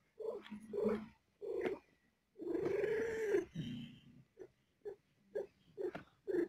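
Mother cat in labour crying in short, repeated calls, about two a second, with one longer drawn-out cry in the middle.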